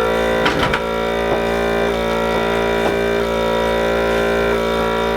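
Goat milking machine's vacuum pump switched on and running with a steady motor hum, with a few faint clicks over it.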